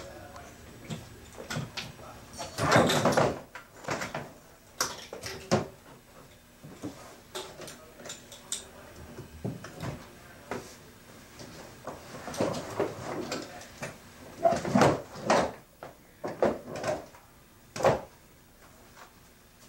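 Folded bicycle frame and wheels being shifted around inside a hard plastic suitcase: irregular clicks, knocks and rattles of metal parts against the case, with a few louder rattling spells.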